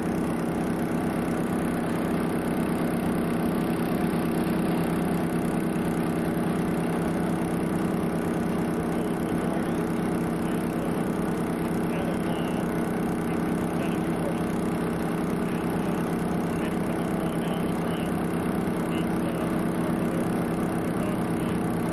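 Twin outboard motors idling steadily at an even level.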